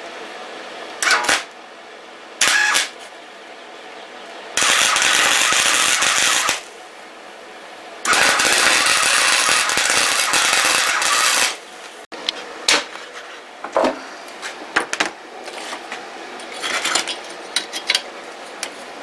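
Wire-feed (MIG) welder arcing: two short crackling tack welds, then two longer steady runs of crackle of about two and three and a half seconds, welding the hood support bracket. Metal clicks and knocks follow.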